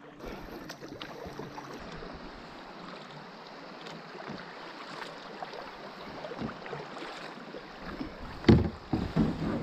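Water swishing and lapping around a kayak as it is paddled, with a louder paddle splash near the end.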